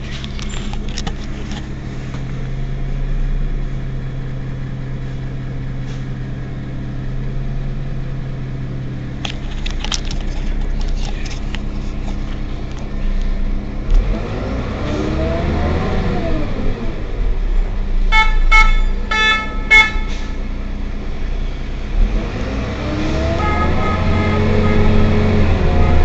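Heuliez GX 127 city bus engine idling steadily, then revving up as the bus pulls away, its pitch rising and falling through the gears. A quick run of short toots sounds about two-thirds of the way through, and near the end the engine climbs in pitch again as it accelerates.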